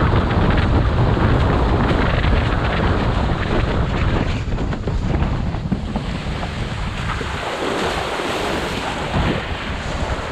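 Wind buffeting a GoPro action camera's microphone together with the rush and slap of water under a slalom windsurf board planing at speed. The low wind rumble eases briefly about three-quarters of the way through, then returns.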